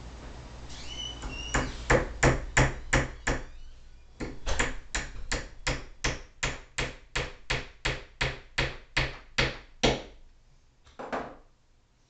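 Hammer driving a nail into a wooden beehive frame: a long run of sharp, evenly paced blows, about three a second, with a short break after about two seconds, stopping around ten seconds in, then one last knock.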